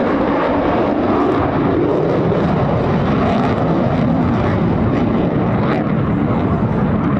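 Twin Pratt & Whitney F119 turbofan engines of an F-22 Raptor flying past low: a loud, steady jet noise.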